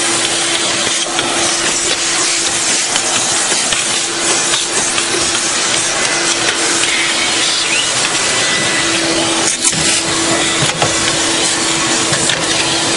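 Vacuum cleaner running steadily with a constant motor whine as its hose nozzle is worked over the floor under a stove, with a couple of brief knocks about ten seconds in.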